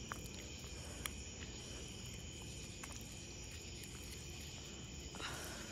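Quiet night-time ambience with a faint steady insect chirr and a few faint clicks.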